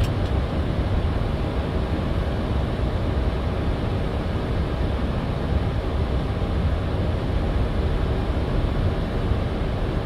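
Steady flight-deck noise of a Boeing 737-800 in flight: a constant rumble of airflow and engines, heaviest in the low bass, with no changes.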